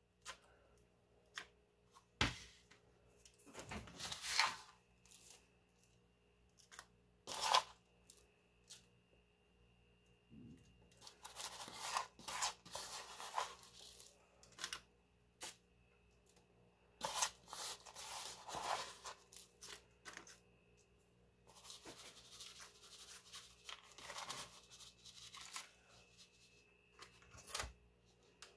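Faint, on-and-off rustling and crinkling of parchment paper and crumbly brown-sugar and cinnamon topping as it is sprinkled and pressed by hand over batter in a loaf pan, with a few scattered soft clicks.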